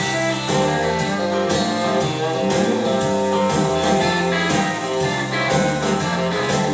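Instrumental break in a country-rap song: a guitar playing over a steady band beat, with no vocals.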